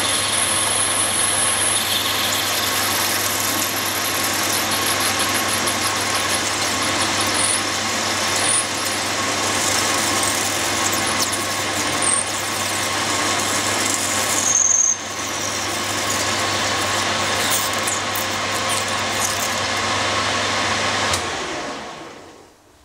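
Mains-powered grinding tool running steadily while grinding the steel of a lawnmower blade, with a constant hum, a harsh grinding hiss and a few brief high squeals. About 21 s in it is switched off and winds down to quiet.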